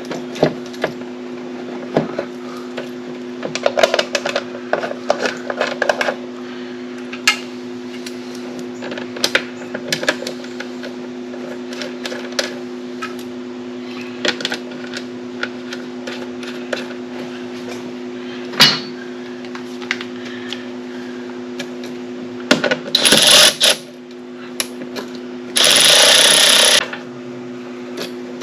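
Scattered clicks, knocks and clattering as parts and wiring are handled and fitted back into a mower's control panel, over a steady hum. Near the end there is a louder rattling stretch, then a loud, even burst about a second long.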